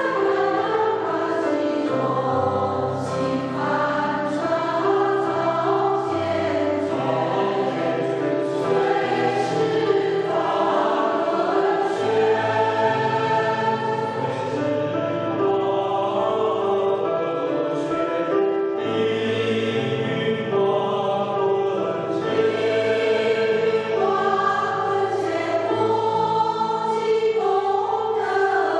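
Mixed choir of men and women singing a hymn, several voice parts together holding long notes.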